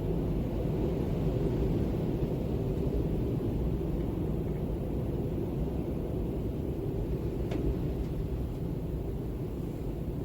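Steady wind ambience, mostly low in pitch, blowing evenly without gusts.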